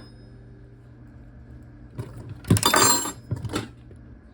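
Metal clinking and rattling of tools on a bicycle wheel hub as the bearing cone and locknut on the axle are tightened. It starts with a click about two seconds in, then a short loud rattle and a couple of lighter clinks.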